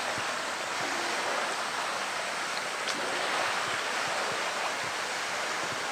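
Steady rush of running water in a polar bear's pool, with a few small splashes as the bear moves in the water against a plastic float.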